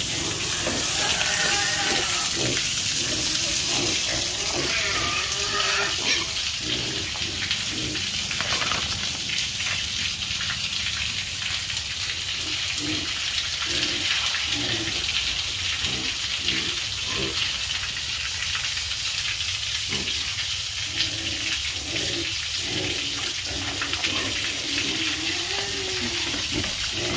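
Pigs grunting and squealing in short calls over a steady hissing noise.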